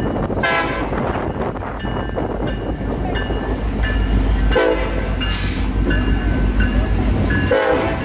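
Freight train pulled by diesel-electric locomotives passing close by with a steady low rumble, and the locomotive horn sounding in three short blasts: near the start, about halfway and near the end.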